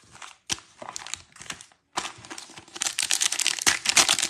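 Foil wrapper of a 2022 Zenith football card pack crinkling and tearing as it is ripped open by hand: scattered crinkles and clicks at first, then dense crackling from about halfway through, loudest near the end.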